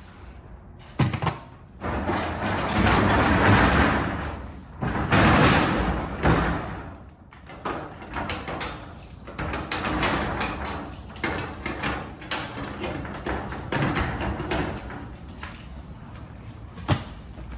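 A sliding door rumbling open and, a little later, shut again, with a sharp knock near the end.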